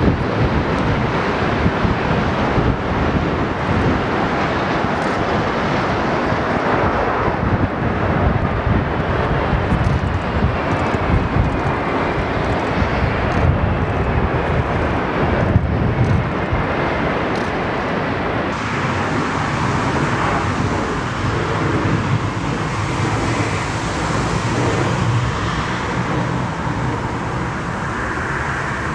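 Jet engines of a wide-body Airbus A330 airliner landing and rolling out on a wet runway: a loud, steady noise with wind buffeting the microphone and a faint whine falling in pitch midway through. About two-thirds through the sound changes as another twin-engine airliner's engines are heard on final approach.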